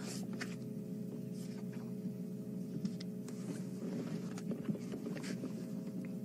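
A steady low hum made of several held tones, with faint scattered clicks and short rasps over it.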